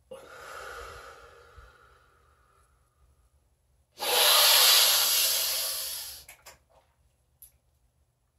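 A man's deep breath drawn in, fading off over about two seconds. After a pause of about a second and a half, a much louder, forceful breath out lasts about two seconds and tails away, followed by a couple of small clicks.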